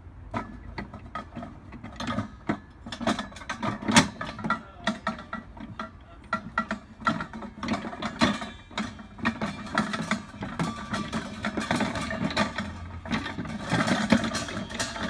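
Irregular metallic clicks, knocks and rattles as the ice cream churn's cast metal gear head, pulley and drive belt are handled and seated on the churn bucket.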